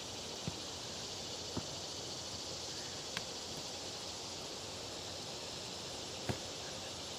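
A steady high drone of summer insects over open-air ambience. It is broken by a few sharp knocks of a soccer ball being kicked on grass, the loudest about six seconds in.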